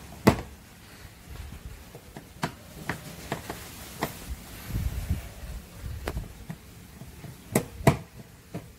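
Screwdriver clicking and tapping against the plastic interior door-handle surround of a 1998 Ford Laser's door trim as the screw behind the handle is worked on. There are scattered sharp clicks: a loud one just after the start and a loud pair near the end.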